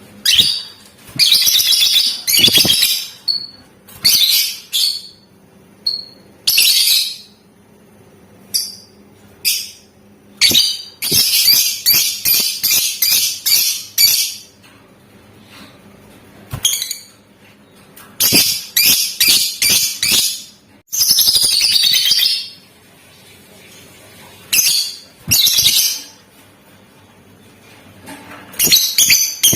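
Lovebird calling in loud, shrill bursts with short pauses between, several of them runs of very rapid ticking notes (the 'ngetik' chatter).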